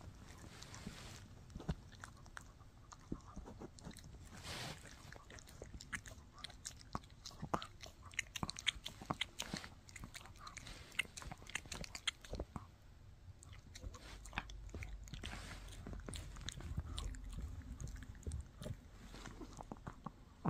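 Shih Tzu chewing a bully stick: irregular crunching and clicking bites.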